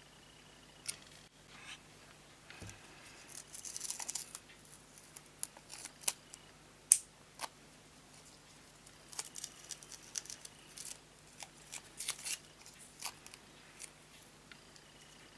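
Irregular sharp clicks and snips from small metal parts and hand tools being worked, with a short scraping rustle about four seconds in and a single loudest click near the middle.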